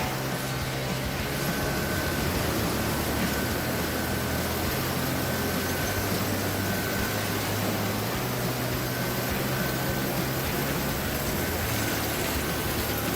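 Sawmill machinery running steadily: an even mechanical noise over a low hum, with a faint high whine coming and going.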